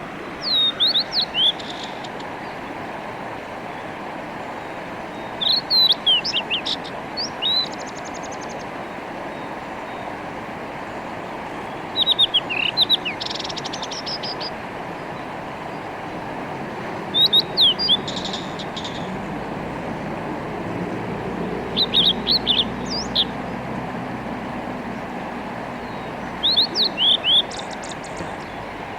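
Blue-and-white flycatcher singing: six short phrases about every five seconds, each a quick run of clear whistled notes ending in a harsh buzzy note, over the steady rush of a mountain stream.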